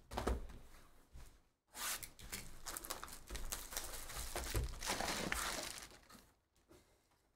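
Plastic shrink wrap being torn and crinkled off a sealed trading card box, with a few handling knocks first; the crackling runs from about two seconds in to about six, ending as the box lid is opened.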